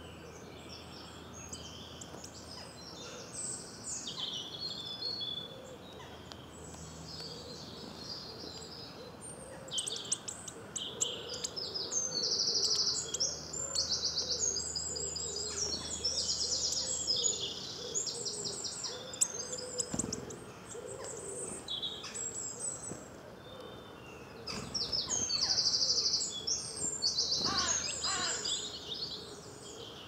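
Woodland songbird chorus: several birds singing at once with high chirps and fast trills, busiest in the middle and again near the end. A lower wavering call runs underneath for several seconds in the middle.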